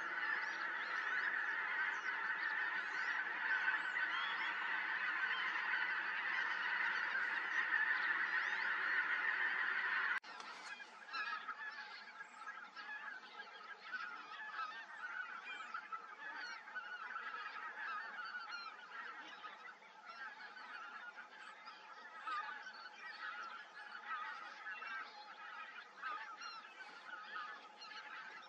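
A large flock of geese calling in a dense, continuous chorus of overlapping honks. About ten seconds in it drops abruptly to a quieter, thinner chorus.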